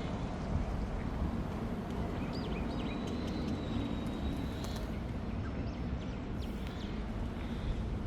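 Steady rumble of passing street traffic, with a few faint high chirps and a thin high tone held for a second or two near the middle.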